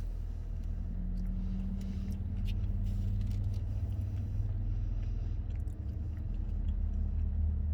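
Low steady rumble of a car idling, heard from inside the cabin, with faint biting and chewing sounds now and then.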